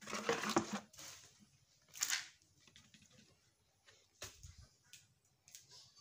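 A plastic cup scooping and scraping dry powdered pig feed in a plastic bucket: a rustling scrape in the first second, another about two seconds in, then a single knock.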